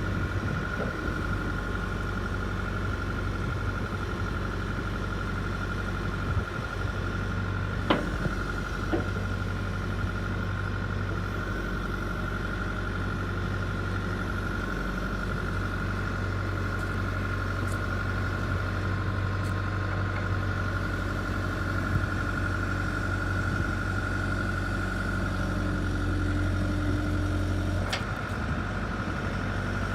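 Bell 315SJ tractor loader backhoe's turbo diesel engine running steadily at idle, with a constant high whine over the hum. A couple of short knocks come about eight seconds in and again near the end.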